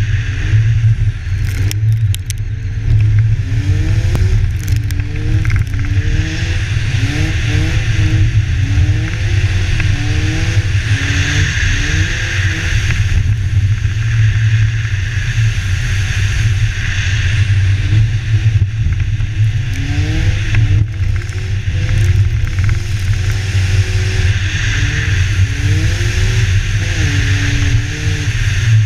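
BMW car engine revving up and down again and again while drifting, heard from a camera on the bonnet under a heavy, steady wind rumble.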